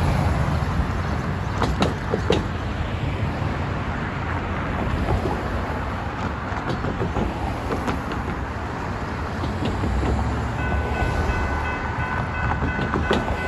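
Road traffic driving over a railroad grade crossing, with a few sharp knocks early on as cars cross the rails. About ten and a half seconds in, the crossing's General Signals electronic bell starts ringing with a steady tone as the signal activates for an approaching train.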